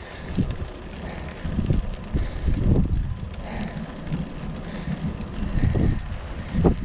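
Wind buffeting the microphone of a camera mounted on a moving bicycle, a low rumble that surges in irregular gusts, over the noise of the bike rolling along a tarmac road.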